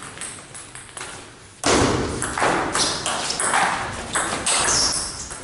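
Table tennis rally: the celluloid ball clicking off bats and table in a large hall. About a second and a half in, a much louder stretch of rough noise breaks in and runs for several seconds.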